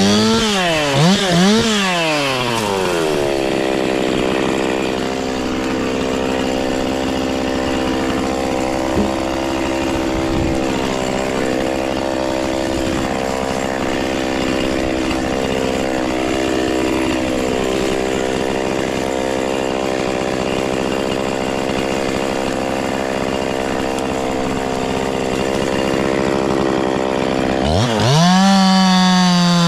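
Gas chainsaw blipped up and down a few times, then held at full throttle at one steady pitch for about 24 seconds while cutting through wood, then let off and blipped again near the end.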